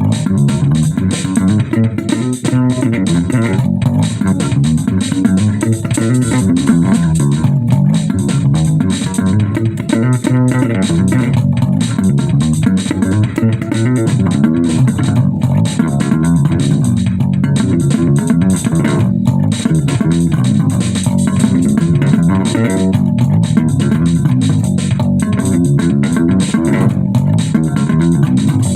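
Bass guitar playing a busy line over drums, with steady beats and cymbal wash behind it.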